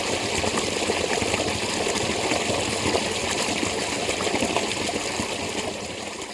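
Water of a spring running and splashing in a steady rush, with many small splashes, fading out near the end.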